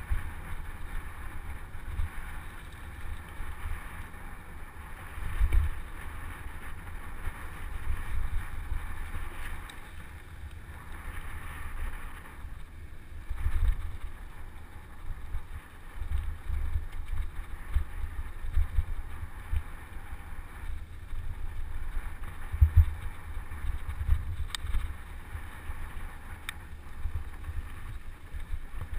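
Wind buffeting the microphone of a camera on a moving mountain bike, an uneven low rumble that gusts up and down, over a steady hiss of tyres rolling on a dirt road. A couple of faint clicks come near the end.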